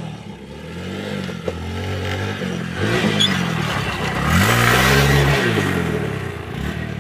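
Motorcycle engine revving up and down several times, with the loudest, highest rev a little past halfway before it eases off.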